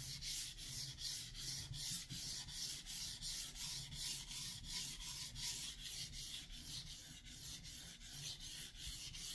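Santoku blade stroked back and forth on a wet 1000-grit whetstone, steady scraping in even strokes, about three a second, while the edge is being sharpened on the medium-grit stone.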